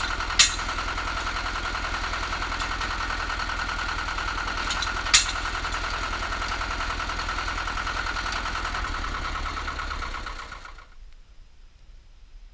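Cable percussion drilling rig's engine running steadily with a fast, even pulse, broken by two sharp metallic clanks, one just after the start and one about five seconds in. About ten and a half seconds in, the sound dies away.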